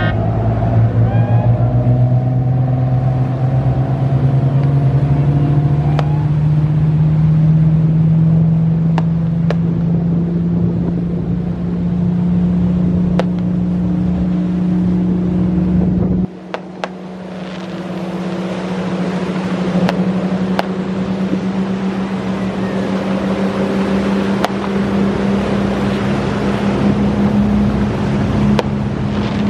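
Motor launch engines accelerating hard from a standing start, the note climbing for about twelve seconds, then running steadily at speed over the hiss of water and spray. Occasional sharp knocks come from the hull hitting waves.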